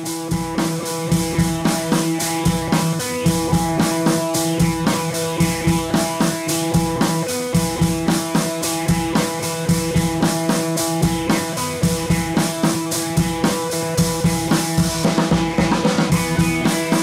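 Background music with a drum kit keeping a steady beat under held tones.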